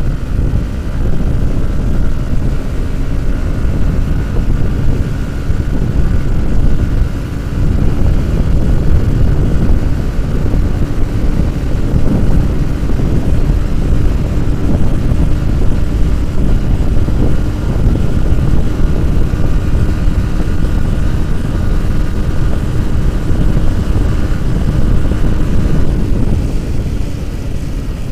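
Motorcycle engine running at high, steady revs at speed, with heavy wind rumble on the microphone.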